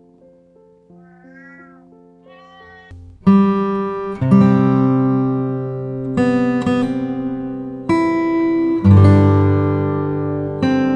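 A domestic cat meows twice, short and faint, over soft held music notes; about three seconds in, an acoustic guitar comes in loud, strumming chords every second or two.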